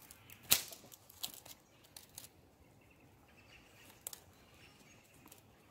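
A few irregular sharp clicks and taps, the loudest about half a second in and a last pair about four seconds in, over faint outdoor background with birds.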